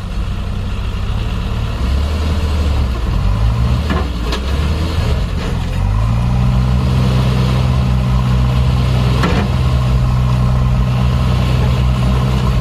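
A heavy diesel engine running, its speed picking up about two seconds in and again about six seconds in, then holding steady; a couple of faint knocks along the way.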